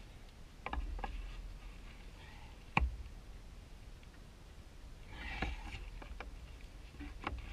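Work in a dirt trench around a buried PVC pipe with a wooden handle: a handful of sharp knocks and a short scrape, the loudest knock about three seconds in, over a low rumble.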